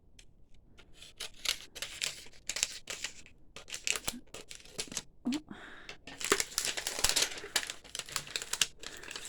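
Wrapping on a jumbo mystery capsule being torn open and crinkled by hand in a rapid, irregular crackle that grows busier in the second half.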